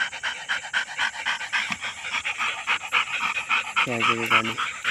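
Dogs panting rapidly while tugging at a stick held between a Labrador and a German Shepherd, with a short low hum about four seconds in.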